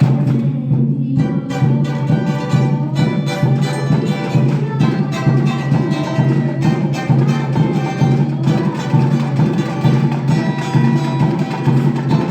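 A band playing a song in rehearsal, its instruments coming in together over a steady repeating bass line.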